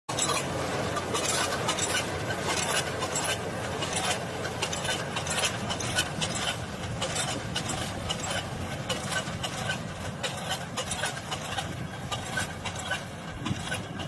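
Kubota combine harvester at work in a paddy rice field: a steady engine and machinery noise with many irregular clinks and clatters from the running machine.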